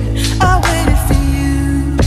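Background music: a pop-style song with a sung vocal line over a steady bass.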